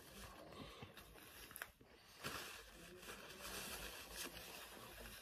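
Faint rustling of a paper sandwich wrapper being handled, with quiet chewing.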